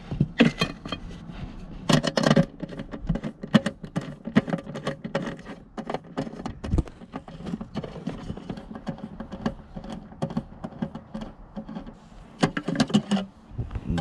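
Irregular clicks and small metallic rattles of hand work on the airbag control module under the seat: its 10 mm nuts coming off and the module lifting off its mounting studs.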